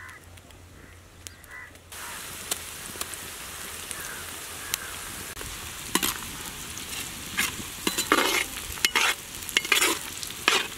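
Onions, green chillies and ginger-garlic paste frying in hot oil in an iron kadai: a sizzle that starts abruptly about two seconds in and keeps going. From about six seconds a perforated metal skimmer stirs the fry, scraping and clanking against the pan in quick strokes.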